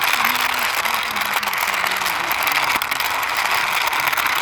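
Plastic wheels of a toy backhoe rolling and rattling as it is pushed by hand across a surface, a steady dense clatter.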